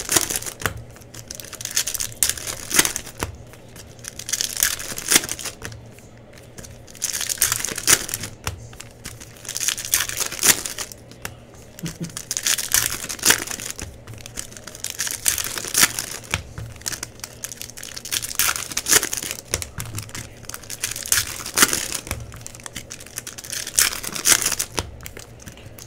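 Trading-card pack wrappers crinkling and tearing in irregular bursts as packs are opened by hand.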